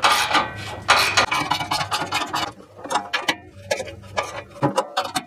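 A 3/8-inch hand ratchet with a hex-bit socket clicking in quick runs as it is worked back and forth, tightening the screws of a stainless steel catalytic converter shield, with brief pauses between strokes.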